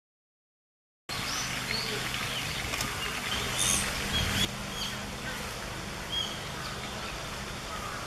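Silence, then about a second in outdoor ambience begins: a steady hiss with a low hum, over which several birds give many short, high chirps and calls. The chirps are loudest around the middle.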